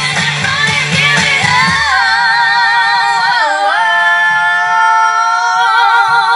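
A song with a singing voice over a beat. The beat stops about two seconds in, and the voice then holds one long note with vibrato.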